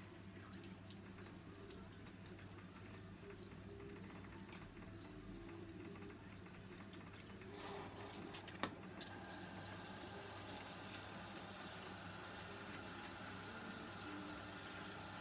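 Water from a salon basin's handheld shower spray running over hair and into the basin, a faint steady rush. The spray gets louder about halfway through, with one sharp click shortly after.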